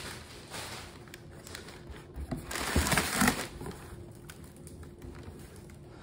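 Crumpled newspaper packing rustling and crinkling as hands dig through it in a cardboard box. It is loudest for about a second in the middle.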